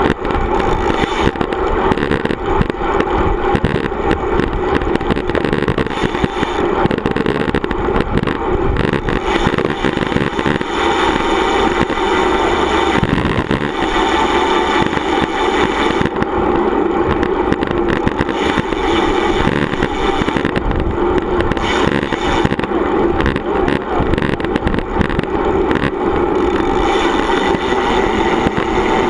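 Steady wind buffeting on a bike-mounted camera's microphone, mixed with the rolling hum of road-bike tyres on asphalt, while riding at speed.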